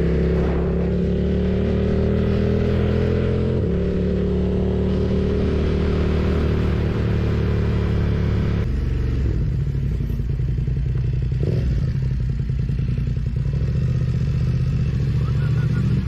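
BMW F900R parallel-twin engine running while riding, with a steady note that steps to a new pitch about four seconds in and changes again about nine seconds in.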